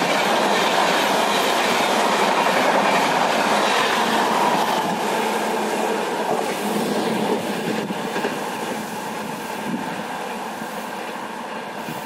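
Express train's blue LHB passenger coaches rushing past at speed, with wheels clattering over the rails. The noise thins out and fades after about six seconds as the tail of the train goes by and away.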